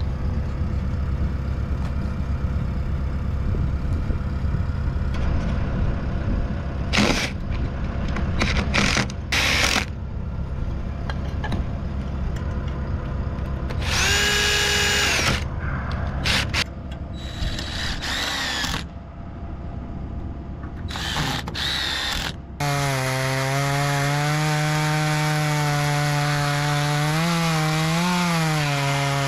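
Cordless drill running in several short bursts, with one longer whine about 14 seconds in, over a steady low rumble. About 23 seconds in, a Stihl two-stroke chainsaw starts running steadily at high speed, cutting into a wooden power pole.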